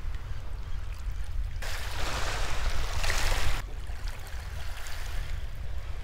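Small wave washing up over the shingle in one hissing wash of about two seconds, starting a second and a half in, over a steady low rumble of wind on the microphone.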